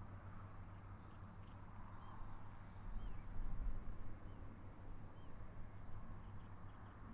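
Quiet outdoor ambience with faint, scattered bird chirps and a steady high insect buzz that stops and starts. A low rumble swells briefly about three seconds in.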